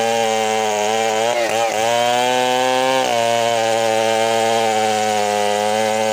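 Large two-stroke chainsaw running at full throttle while ripping a squared bengkirai timber lengthwise into boards. The engine pitch sags briefly about a second and a half in as the chain bites under load, then holds steady.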